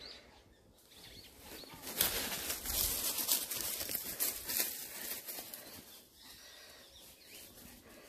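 Rustling and crunching of dry leaf litter and brush as someone walks through the forest, loudest from about two seconds in until about five and a half seconds in, then quieter.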